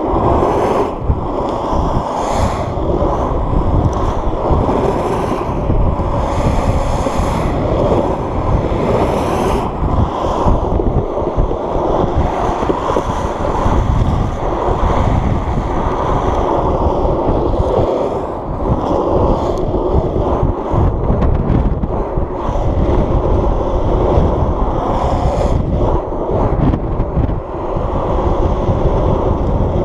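Heavy wind noise on the microphone of a camera riding along on a fast downhill longboard, mixed with the steady rumble of the board's wheels rolling on asphalt.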